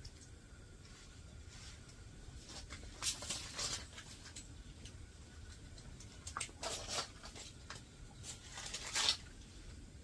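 Faint rustling and scraping handling noises in three short clusters, about three, seven and nine seconds in, over a low steady rumble.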